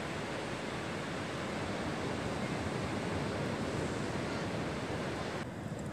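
Steady rushing noise of surf and wind at the shore, turning duller about five and a half seconds in.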